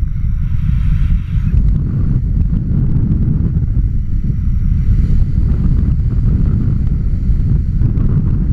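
Wind from a paraglider's flight buffeting an action camera's microphone: a loud, steady low rumble.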